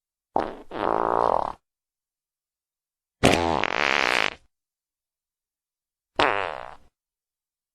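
Three fart sound effects, one after another with dead silence between: a buzzy one about a second long, a longer one of about a second and a half, then a short one that fades out near the end.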